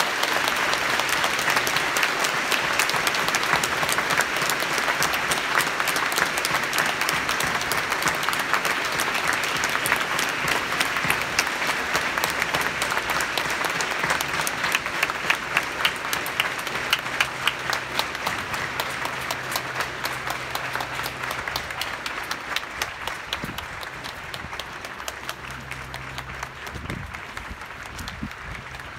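Large crowd applauding, many hands clapping together in a steady dense patter that starts at once and slowly fades over the last third.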